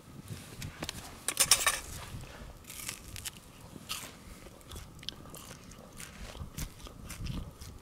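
Close-up biting and chewing of a fire-roasted smoky sausage, with crunching from its charred skin; the loudest crunch comes about one and a half seconds in.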